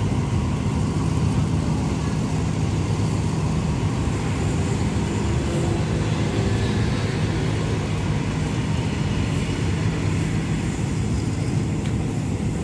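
Diesel passenger train at the platform with its engine running: a steady low drone with a rumbling hum underneath, unchanging throughout.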